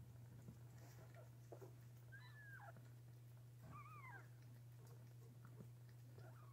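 Newborn kittens mewing faintly: three thin, high cries, each one falling in pitch, with a steady low hum underneath.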